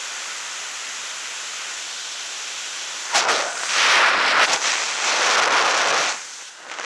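Freefall wind rushing over a skydiver's helmet-mounted camera microphone: a steady hiss, then from about three seconds in a louder, gusty buffeting that eases near the end.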